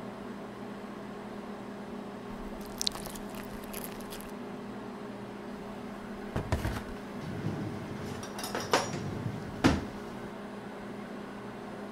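Breakfast cereal poured from its box into a bowl a few seconds in, then a plastic milk jug is handled and milk poured, with several knocks and clunks of things set down on the countertop. A steady low electrical hum runs underneath.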